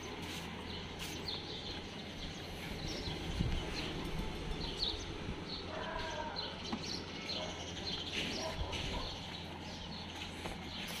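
Small birds chirping on and off over a steady low hum, with a brief pitched call about six seconds in.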